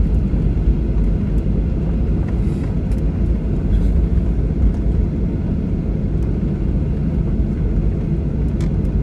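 Steady low cabin rumble inside a Boeing 737-800 airliner on the ground just after landing, with the engines and the rolling aircraft heard through the fuselage.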